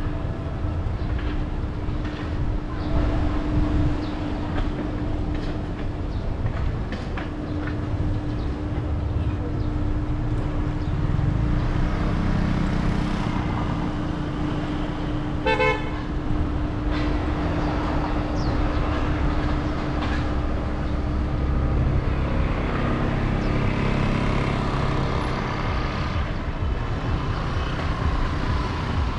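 Road traffic noise with a steady low rumble and hum. A car horn gives one short toot about halfway through.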